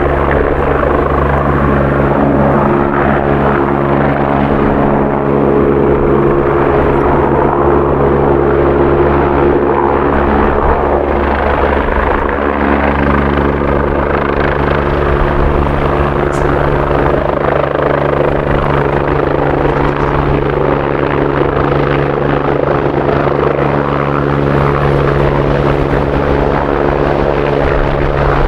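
Twin-turbine AgustaWestland AW109 air-ambulance helicopter hovering and manoeuvring low over the ground, its rotor and turbines running with a loud, steady drone of several held tones that does not change throughout.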